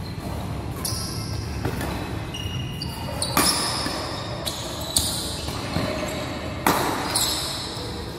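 Badminton rackets striking a shuttlecock in a doubles rally: a series of sharp hits about once every second or so, the loudest a smash, with short squeaks of shoes on the court floor between them.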